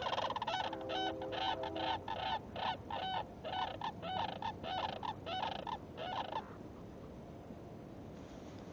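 Sandhill cranes calling: a rapid run of loud, rolling calls, about two a second, that stops about six and a half seconds in.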